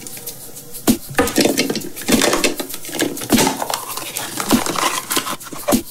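A large hollow plastic nesting egg is handled and pulled open by hand. The plastic shell halves give irregular clicks, knocks and rubbing sounds.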